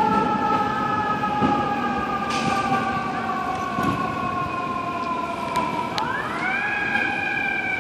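Fire engine siren, FDNY Engine 273 responding, heard as the truck moves away. Its mechanical wail slides slowly down in pitch, then winds quickly back up about six seconds in, over general street traffic noise.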